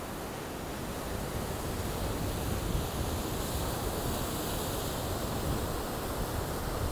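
Surf: waves breaking and washing against a granite rock jetty, a steady rushing noise that grows louder about a second in, with some wind on the microphone.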